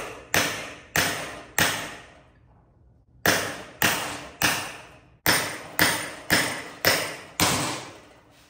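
Hammer blows on a steel race driver, driving a heated carrier bearing down onto a differential carrier through an old bearing's inner race. About eleven sharp metallic strikes come in three runs of three, three and five, each about half a second apart and ringing out briefly. On the last blows the hammer bounces, the sign that the bearing has seated.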